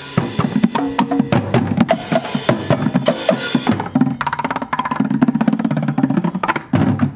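Percussion ensemble drumming with sticks on plastic paint buckets, drums and cymbals, playing a dense, fast rhythm. A bright cymbal wash runs through the first half and drops out about four seconds in.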